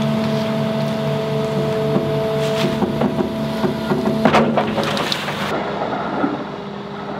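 Excavator diesel engine running steadily under load as it drags a sunken tractor by a strap, with a few sharp knocks a little over four seconds in. About five and a half seconds in, water rushes and splashes as the tractor is pulled through the river.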